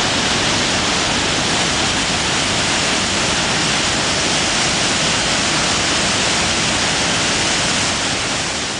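Water spilling over the crest of a concrete multiple-arch dam and crashing into the rocky gorge below: a loud, steady rush that eases off slightly near the end.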